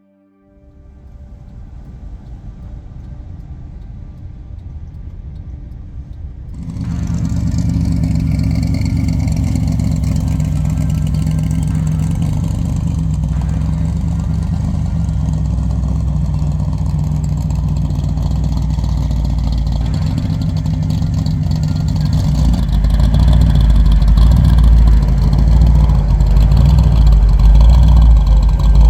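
A car engine running steadily, with a strong low hum of engine tones. It comes in faintly at first, gets much louder about seven seconds in, and louder again near the end.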